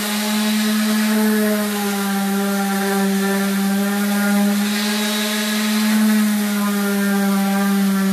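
Electric orbital sander with coarse sandpaper running continuously against a painted wooden board, sanding back the dried paint layers. It makes a steady motor hum that wavers slightly in pitch.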